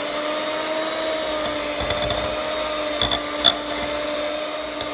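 Electric hand mixer running steadily on its lowest speed, its beaters churning a thick cream-cheese and pumpkin mixture in a bowl. A few sharp clicks come around two and three seconds in.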